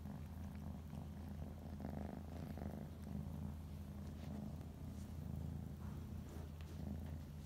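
Tabby cat purring steadily.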